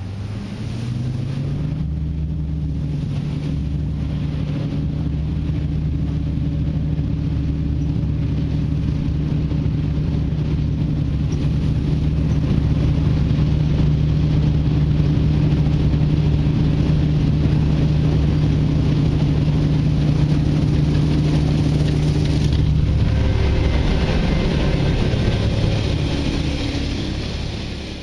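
A motor vehicle's engine speeds up over the first couple of seconds, then runs steadily at constant speed. About 23 seconds in its note drops and changes, and it fades out at the end.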